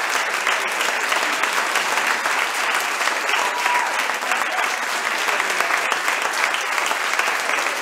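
Audience applauding: many hands clapping at a steady level throughout.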